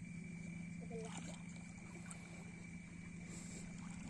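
Small fishing boat's motor running steadily at trolling speed: a constant low drone with a thin high whine over it.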